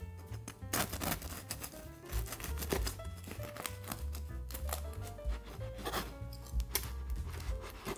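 Background music with scattered crisp crackles and clicks from the crust of a baked loaf being cut.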